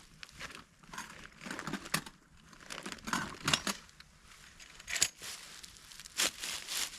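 Footsteps crunching and crinkling through dry dead leaves on the forest floor, in an irregular run of steps.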